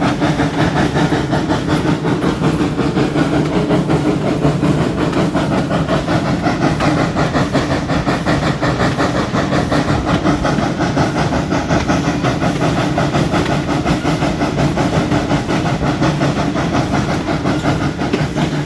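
Steam-hauled train of the Arcade & Attica Railroad, led by its 1920 steam locomotive, running on the rails: a steady rhythmic rumble and clatter of wheels and cars.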